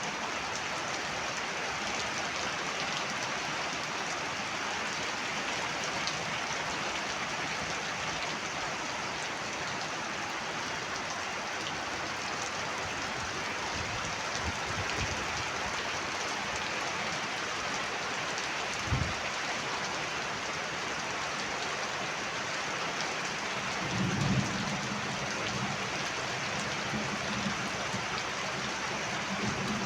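Heavy rain falling steadily in a dense, even hiss. There is a short low thump about two-thirds of the way in, and a louder low rumble of thunder near the end that lasts a few seconds.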